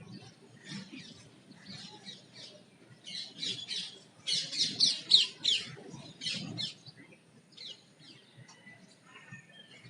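Several birds chirping in quick, short calls, rising to a loud burst of rapid chirps about halfway through.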